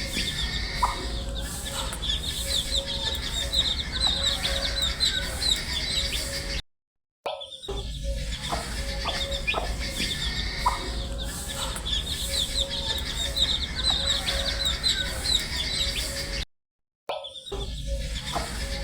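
A brood of baby chicks peeping continuously, many quick, high, downward-sweeping chirps overlapping. The sound cuts out briefly twice.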